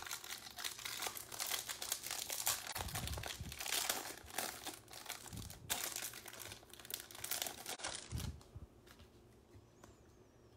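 Plastic wrapper being torn and crinkled off a pack of football trading cards; the crinkling stops about eight and a half seconds in.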